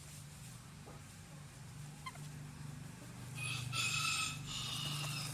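A rooster crowing once: one long pitched call of about two seconds, starting a little past halfway. A steady low hum runs underneath.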